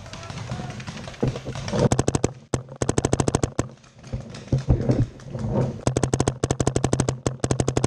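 Paintball marker, an Empire Mini GS, firing in rapid strings of shots, about ten a second: one string about two seconds in and another from about six seconds in.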